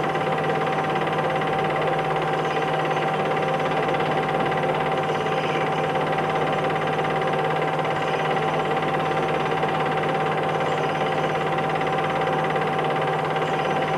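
Steady machine-like hum and hiss with a constant whine over it, unchanging throughout, with no speech.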